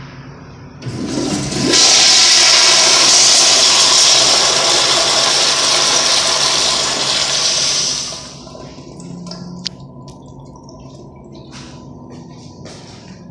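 Commercial flushometer valve on an American Standard Afwall wall-hung toilet, its handle pushed down by foot: the water rushes into the bowl loudly and steadily for about seven seconds, then dies away. A single click follows a little later.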